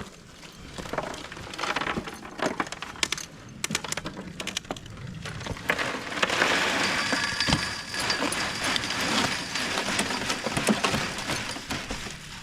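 Gritty scraping and pouring with scattered knocks, as concrete mix goes into a gate post hole. It thickens into a steady rush about halfway through.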